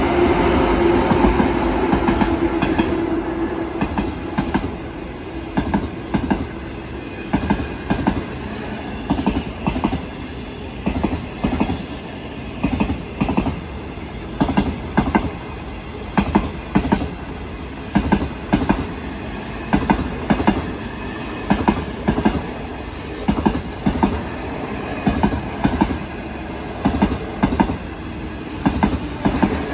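A railway train rolling past, its wheels clicking over the rail joints in a regular clickety-clack, about one group of clicks every second and a quarter, over a steady rumble. A steady hum from the train fades away over the first few seconds.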